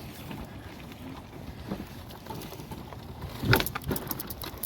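Go-kart running over rough ground with a steady rumble and rattle, and a sharp loud knock about three and a half seconds in.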